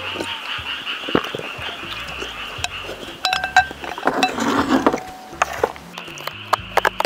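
A steady chorus of frogs calling in the background. Chopsticks clink against a glass bowl a little past the middle, with a ringing tone, among eating sounds; in the last second, a cardboard ice cream box is handled with small clicks and crinkles.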